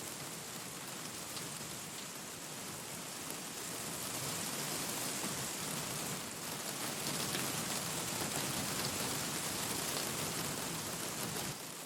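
Steady rain falling, a dense even hiss with faint scattered drop ticks. It grows louder about four seconds in and drops back suddenly near the end.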